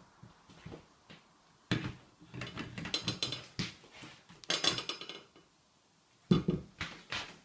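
Ceramic bowl knocking and scraping against a black plastic elevated dog bowl stand as it is set in and lifted out, with several clatters in which the bowl rings briefly, and a sharp knock near the end.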